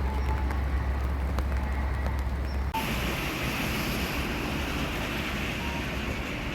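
Steady vehicle running noise with a deep low rumble, which changes abruptly about three seconds in to a lighter, hissier noise.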